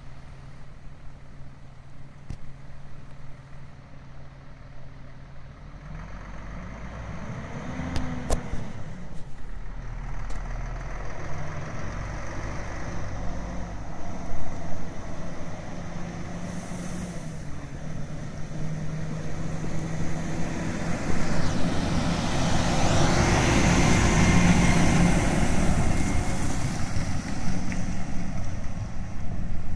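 Volvo truck's diesel engine running steadily with a couple of sharp clicks, then growing louder and rougher from about twenty seconds in as the truck is driven under load.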